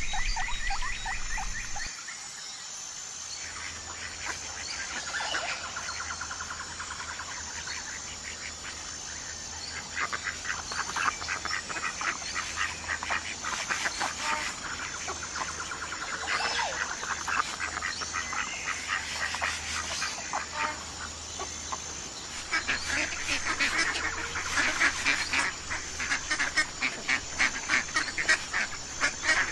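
A flock of geese and ducks honking and quacking in a dense, overlapping chorus, growing busier and louder over the last several seconds. It starts about two seconds in, where a different, lower sound cuts off.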